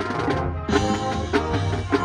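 High school marching band playing a loud passage, with sustained chords over a beat of drum hits.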